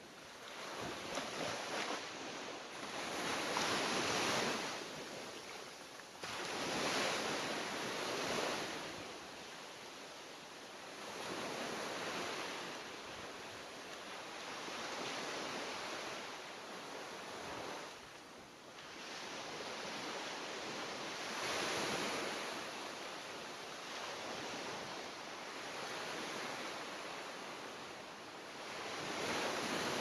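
Ocean surf: waves breaking and washing in, a rushing noise that swells and fades in slow surges every few seconds.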